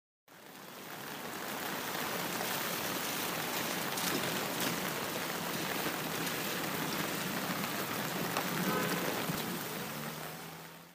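Steady rain falling on tree leaves: an even hiss with a few scattered drop ticks. It fades in at the start and fades out at the end.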